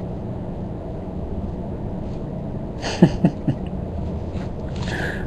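Steady low background hum with no speech, and a few faint clicks about three seconds in.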